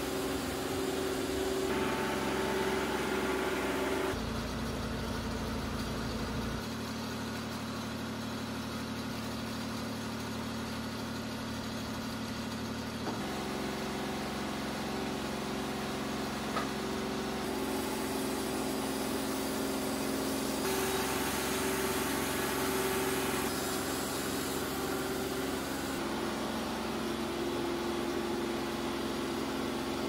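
Engine of a TimberKing 2220 portable band sawmill running steadily under work. Its tone changes abruptly several times.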